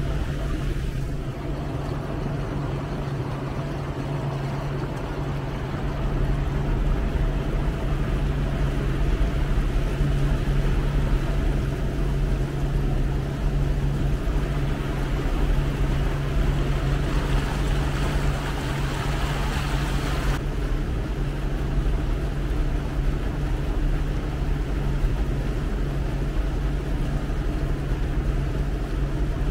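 Motorboat engine running steadily at cruising speed, a constant low drone, with a higher hiss over it that drops away suddenly about twenty seconds in.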